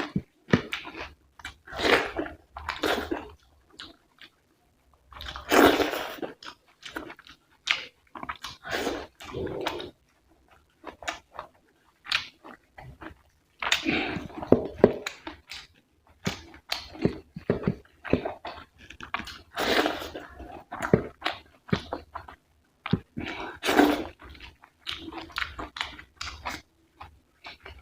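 Close-miked chewing and wet mouth sounds of someone eating rice and curry, in irregular bursts with small clicks and smacks.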